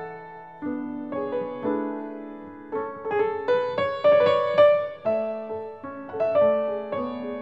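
Piano music: melody and chords of struck notes, each left to ring and fade.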